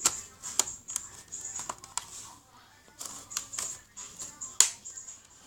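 Plastic clicks and snaps as a laptop keyboard is pressed down into the chassis, its clips snapping into place one after another. The clicks are irregular, with the sharpest snap near the end.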